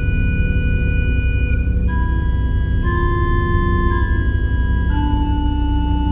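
Pipe organ playing slow, sustained chords over a steady deep bass, the held notes moving to new pitches about every second.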